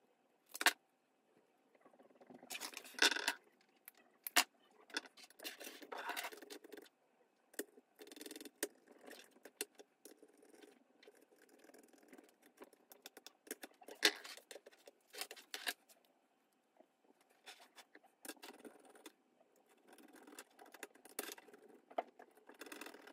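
Scattered small clicks, taps and scrapes of hand tools and wires being handled on a wooden workbench, with a few sharper clicks, as a screwdriver fastens wires into the terminals of a motor speed controller.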